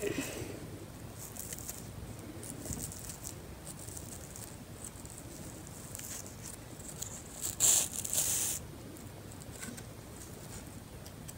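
Soft rustling and scratching of fabric and ribbon as a ribbon is threaded by hand through the top of a small fabric bag, with a louder rustle lasting about a second two-thirds of the way through.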